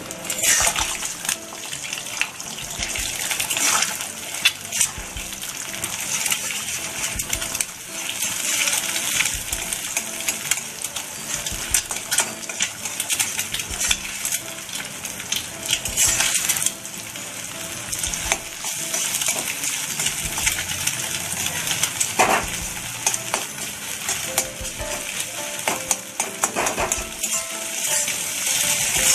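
Eggs sizzling in hot oil in a steel kadai while a metal spatula scrapes and clinks against the pan, breaking them up into scrambled pieces. The sizzling hiss is steady and full of sharp scraping clicks.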